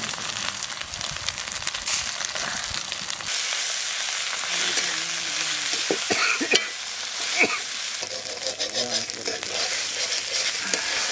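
Onions, green chillies and spice paste sizzling in hot oil in a metal kadai, with a metal spatula scraping and clicking against the pan as it is stirred.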